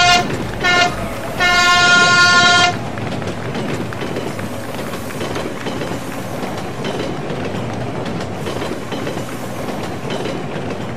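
Train horn sounding three times (the tail of one blast, a short blast, then a longer one about two seconds in), followed by the steady rumble and wheel clatter of a passing train, laid over the model railway as a sound effect.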